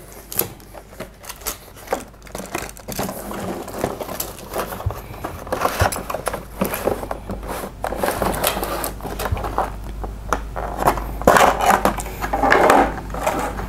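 Cardboard box and clear plastic blister packaging being opened and handled: irregular rustling, scraping and small clicks, busiest in the last few seconds as the plastic tray is pulled out.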